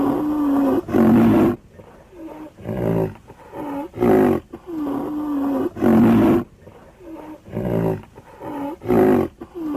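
A wild animal calling in a steady series of short, deep roaring calls, about one a second.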